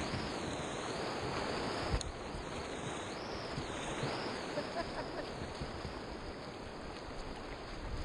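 Whitewater rushing and churning around a kayak's bow as it runs down a rapid, with one knock about two seconds in. The rush eases a little near the end as the boat reaches calmer water.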